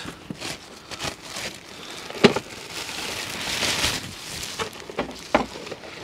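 Plastic packaging bag crinkling and rustling as a wrapped part is pulled out of a cardboard box, with a couple of sharp knocks, the loudest about two seconds in.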